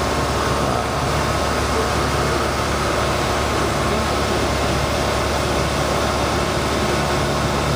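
Suzuki 175 outboard motor on a river tour boat running steadily at cruising speed, a constant low drone under an even rush of noise.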